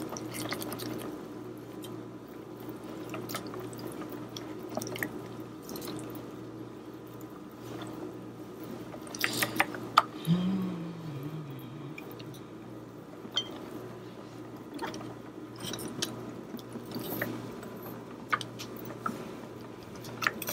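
Wire whisk beating a flour-and-egg batter in a glass bowl: a wet, steady churning with scattered clicks of the wires against the glass, a few sharper clicks about nine to ten seconds in.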